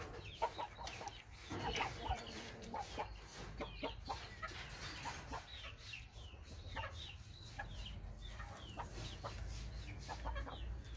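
Chickens clucking, with many short calls scattered through and no single loud event.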